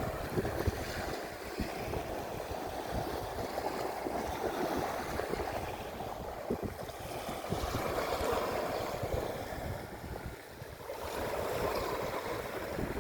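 Ocean surf washing in and drawing back in a continuous rush that swells and eases, with a brief lull before a fresh wave surges in near the end. Wind rumbles on the microphone underneath.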